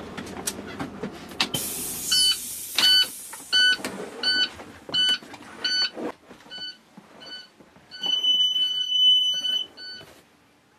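School bus child reminder alarm beeping, a repeated electronic beep about every 0.7 seconds, with one longer steady tone near the end. The alarm sounds until the driver walks to the back of the bus and presses the reset button. Footsteps and knocks on the bus floor run alongside.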